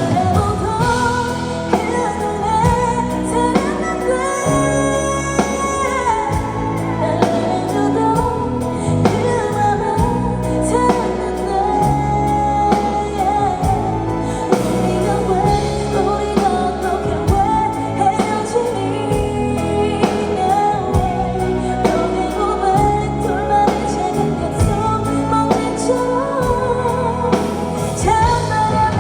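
Live pop ballad from a concert PA: a female vocalist singing long, held notes over a full band with a steady drum beat, picked up distorted by the camera's microphone.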